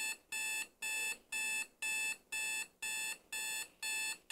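Wake-up alarm beeping steadily, about two short buzzy beeps a second, all of the same pitch.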